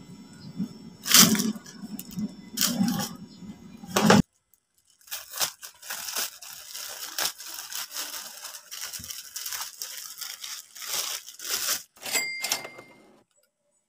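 Thin plastic clothing bags crinkling and tearing as they are handled and opened, in irregular bursts. There is a short break a little after four seconds, then a longer stretch of steady crinkling that dies away near the end.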